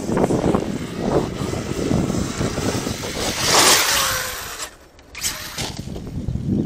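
Arrma Kraton 8S electric RC truck being driven hard over rough ground: tyres churning and the drivetrain running, rising to a louder surge about three and a half seconds in, then dropping away briefly near five seconds.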